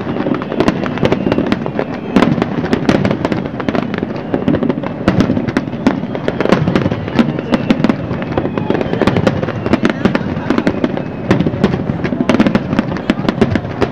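Aerial fireworks shells bursting in quick, irregular succession, several sharp bangs a second, over a background of voices.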